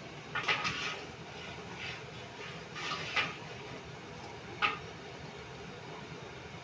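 Short clattering rustles of hands and food against stainless steel bowls as sliced tomatoes are handled and green chillies are tipped in from a second steel bowl: three bursts, the last, about two-thirds of the way in, a sharp metal clink.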